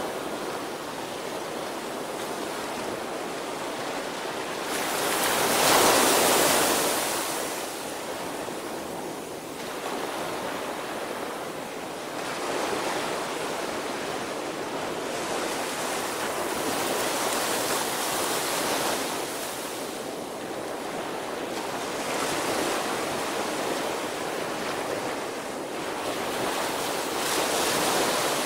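Small waves breaking and washing up a sandy beach: a steady hiss of surf that swells as each wave breaks, the loudest about six seconds in and another near the end.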